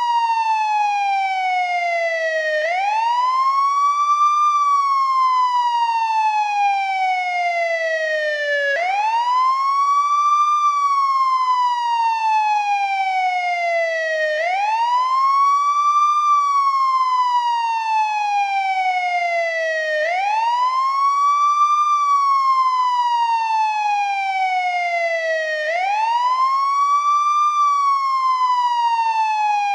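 Old-model American ambulance wail siren, cycling steadily: the tone climbs quickly for about two seconds, then falls slowly for about four, repeating about every six seconds.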